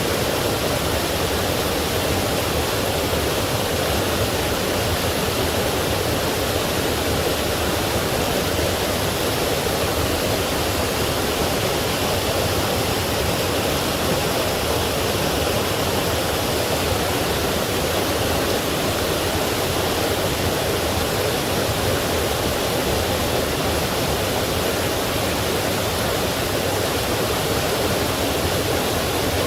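Forest stream and waterfall flowing: a steady, unbroken rush of water.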